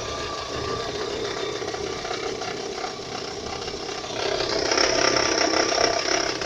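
Engine running with a knock in it. The sound gets louder about four seconds in.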